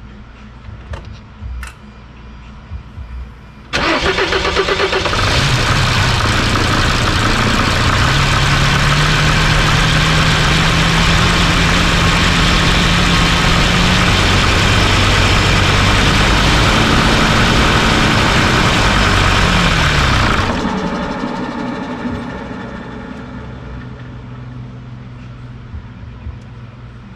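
Mercedes OM612/OM647 five-cylinder common-rail diesel cranking and catching a few seconds in, then picking up speed and running steadily for about sixteen seconds before it slows and dies. The owner blames this repeated stall-after-start on fuel rail pressure regulation, suspecting a faulty rail pressure sensor or its wiring. A few faint clicks come before the start.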